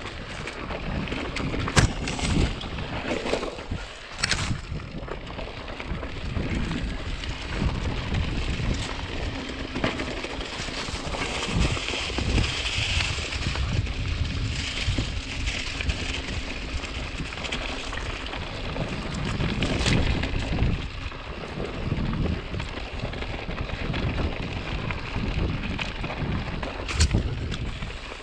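Mountain bike rolling fast down a dirt singletrack: wind rushing over the microphone and tyres rumbling on the trail, with the bike rattling and a few sharp knocks over bumps.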